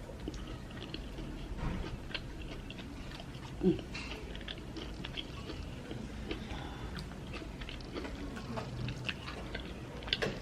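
Close-up chewing and wet mouth clicks of a person eating amala with ewedu soup and fish. One brief louder low sound comes about three and a half seconds in.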